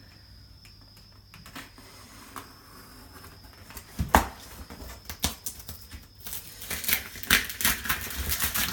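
Packaging of a large boxed sewing machine being wrestled with by hand: a couple of sharp knocks about four and five seconds in, then a burst of rustling and scraping near the end as the packing is pulled loose.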